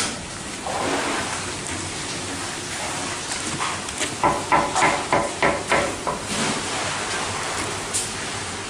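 Hand work over a wood-fired coconut-and-sugar cooking pot: a run of quick scraping strokes, about four or five a second, lasting about two seconds near the middle, over a steady noisy background.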